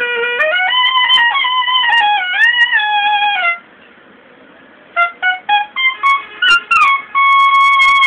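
Solo clarinet playing a slow, unmetered alaap: a sliding, ornamented melody line, a pause of about a second and a half midway, then a few short detached notes and a long held note near the end.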